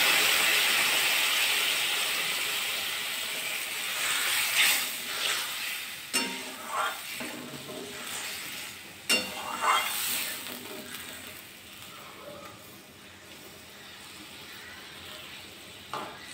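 Hot water poured into a kadai of sizzling spiced oil and masala: a loud hiss that fades away over the first few seconds as the gravy settles. Then a metal spatula stirs the curry, with a few sharp clinks and scrapes against the pan.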